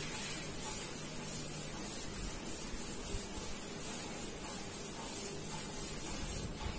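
A felt board duster rubbing across a chalkboard, a soft swishing wipe over steady background hiss.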